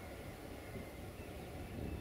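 Faint, low rumble of wind buffeting the microphone outdoors, steady throughout, with no train passing.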